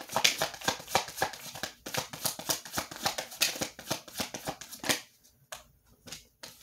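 Tarot deck being shuffled by hand: a fast run of card clicks and flicks that stops about five seconds in, with a few sparse ones after.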